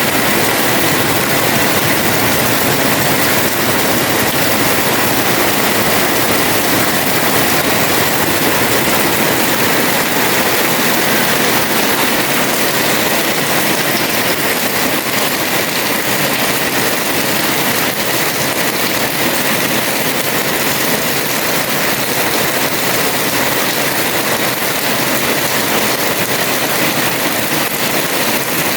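Heavy rain falling steadily on a house terrace, a dense even downpour.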